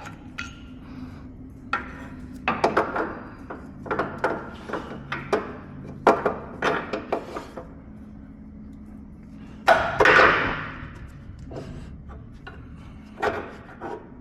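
Metal suspension parts and hand tools knocking and clinking as a control arm and its bolt are handled, a series of short sharp knocks with a longer, louder scraping rattle about ten seconds in.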